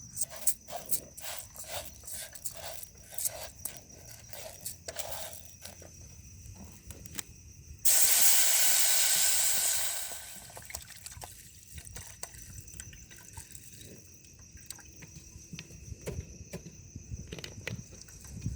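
Scattered light clicks and knocks, then about eight seconds in a sudden loud hiss that lasts about two seconds and tails off.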